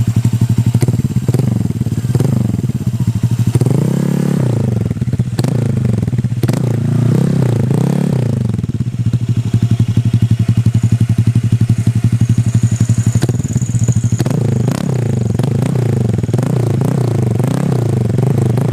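Honda Click 150i scooter's single-cylinder four-stroke engine idling through an aftermarket Akrapovic-style exhaust with its silencer insert removed, giving a pulsing idle. The throttle is blipped about four seconds in and twice more between about six and eight seconds in, the revs rising and falling each time.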